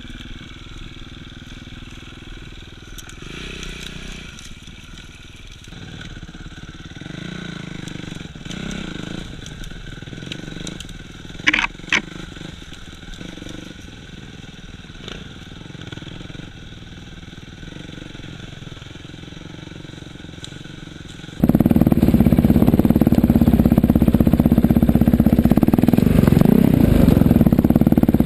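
Motorcycle engine running, with two short, sharp, high-pitched sounds about twelve seconds in. Near the end the sound jumps abruptly to much louder engine noise.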